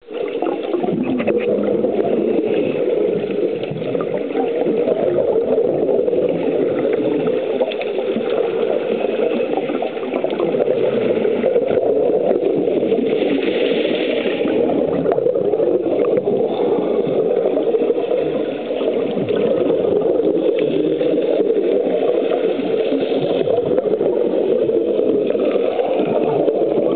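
Muffled underwater rushing recorded through a camera housing during a scuba dive, steady throughout, with brighter hissing stretches from divers' exhaled regulator bubbles, one about halfway through.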